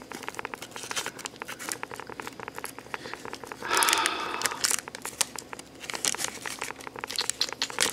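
Thin clear plastic accessory bag crinkling and crackling as fingers work it open to free a toy figure's staff, with a louder burst of rustling about halfway through.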